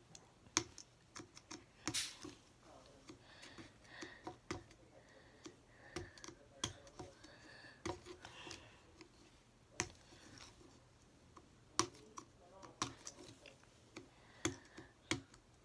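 Fingernails picking, scratching and tapping at a plastic Mini Brands capsule ball: irregular light clicks and scrapes while trying to get the tight capsule open.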